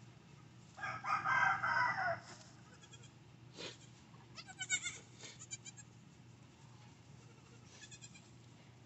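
Nigerian Dwarf goat bleating as a doe gives birth to a kid: one loud bleat about a second in, then quieter wavering calls around four to five seconds.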